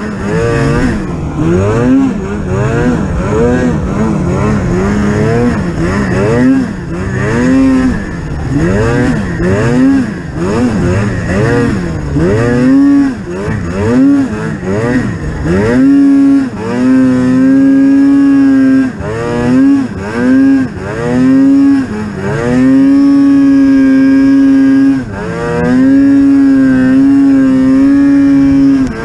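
Polaris Pro RMK 800 snowmobile's two-stroke twin revving up and down over and over. From about halfway it is held at high revs for a few seconds at a time, with short throttle lifts between.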